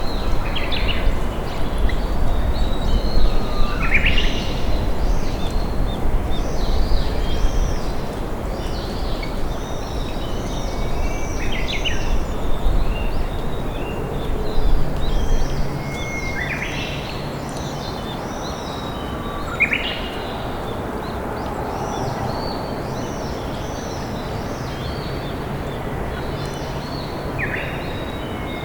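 A river flowing steadily, with wild songbirds singing over it: strings of short arching high notes and a sharp rising call every few seconds. A low rumble under the water sound eases off about halfway through.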